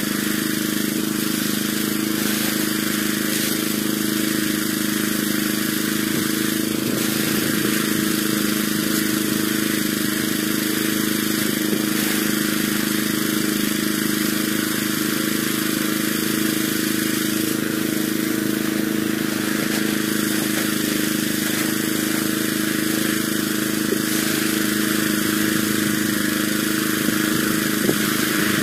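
Small stationary engine on a wooden stand running steadily at a constant speed, with an unchanging hum throughout, while rice is threshed.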